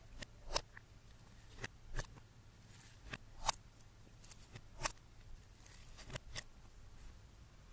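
Slime being worked by hand, giving about a dozen short, sticky clicks and pops at irregular intervals.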